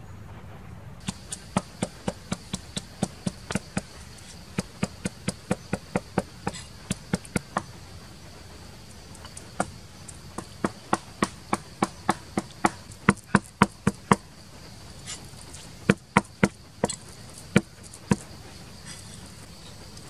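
A knife chopping on a wooden board: a run of sharp knocks about three a second, then after a pause scattered, louder chops. A steady high insect buzz, starting about a second in, runs behind the chopping.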